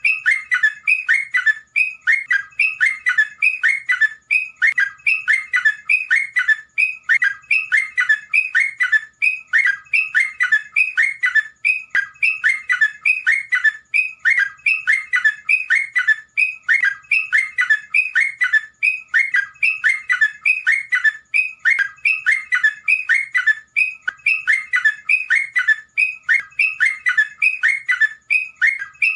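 A terocok, a songbird kept in Indonesia, singing a long unbroken run of fast chattering phrases, repeated about twice a second. This is a masteran recording, the kind played to train caged birds.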